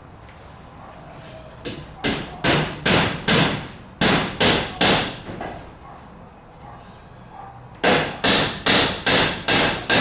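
A hammer driving nails into overhead wooden rafter framing: three runs of sharp, evenly spaced blows, about three a second, with short pauses between the runs.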